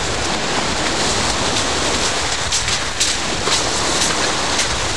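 Sea surf washing in and around a small boat at the shoreline, a steady wash with a few sharp crackles of spray about halfway through. Wind buffets the microphone.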